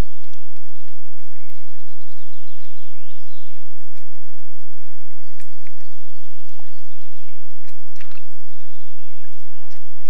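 Moose cow and calf moving and drinking in a muddy puddle: scattered wet clicks and splashes from their hooves and mouths, with birds singing and a steady low hum.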